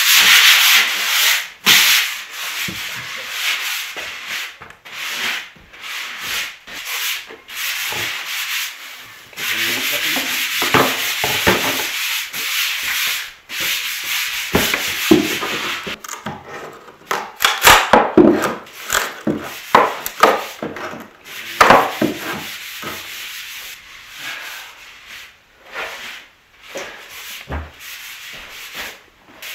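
Sandpaper rubbed by hand over woodwork in quick back-and-forth strokes. The strokes grow louder and rougher for several seconds a little past halfway.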